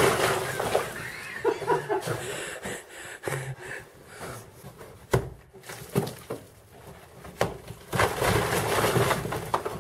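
Brick wall collapsing: a crash of bricks and mortar falling onto a rubble-covered floor, then scattered knocks of loose bricks. Near the end another stretch of bricks and rubble comes crashing down for about a second and a half.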